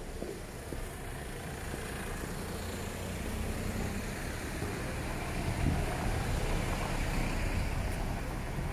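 A Mercedes-Benz SUV driving slowly over a stone-paved street toward the microphone, its engine and tyres getting louder as it comes closer.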